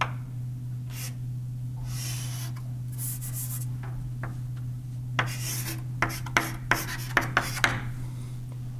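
Writing on a board: scratchy strokes, then a quick run of sharp taps in the second half, over a steady low hum.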